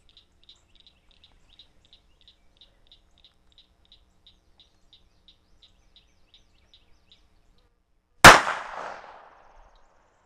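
A single shot from a Jennings J-22 .22 LR pocket pistol about eight seconds in: one sharp crack with a short echoing tail. Before it, a faint high chirping repeats about four times a second.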